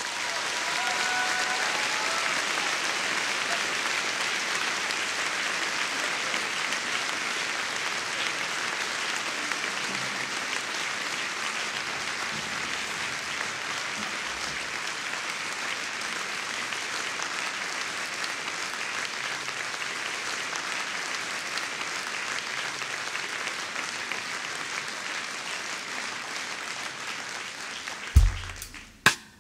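Concert audience applauding steadily, slowly dying down. Near the end two loud, low drum hits sound as the drums start the next number.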